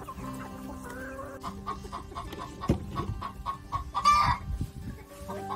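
Chickens clucking in a run of short calls, with one louder call about four seconds in and a few dull low thumps in the middle.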